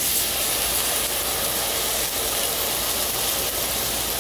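Bacardi rum poured into a hot stainless saucepan of chilies and onions, hissing and sizzling as it hits the pan and boils off in steam. The hiss starts suddenly with the pour and stays steady. The rum does not ignite.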